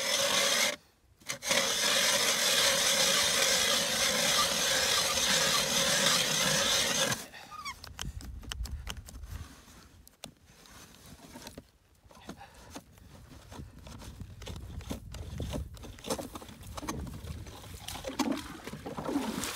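Hand-cranked ice auger, freshly rebuilt with new blades, boring through lake ice: a loud steady grinding rasp for about seven seconds, with a brief pause near the start. It then drops to quieter scrapes and knocks as the blades break through into water and the auger works in the slushy hole.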